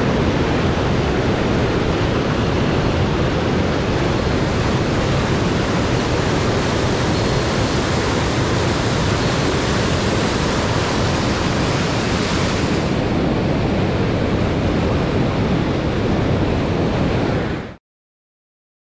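Steady rush of a fast mountain river running high after heavy rain, an even roar of whitewater that cuts off abruptly near the end.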